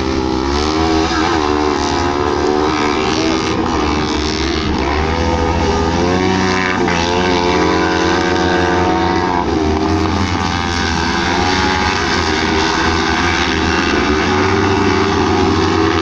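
Engines of several fol'car buggies racing on a dirt autocross track, their notes overlapping and rising and falling as they accelerate and back off through the bends.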